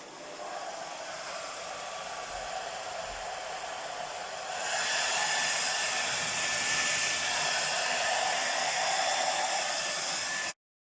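Hair dryer blowing steadily onto wet poured paint to spread it. It gets louder about four and a half seconds in and cuts off abruptly near the end.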